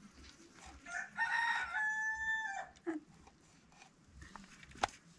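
A rooster crowing once: a single pitched call held for about two seconds, starting about a second in. A sharp click comes near the end.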